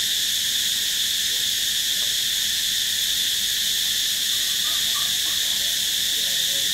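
A steady high-pitched hiss with no change in level, under a faint murmur of a voice about two thirds of the way through.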